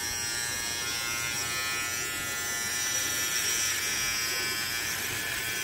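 Philips BT3221/15 cordless beard trimmer running with a steady buzz as its bare blade, with no comb fitted, is run over chin and neck stubble at the zero setting.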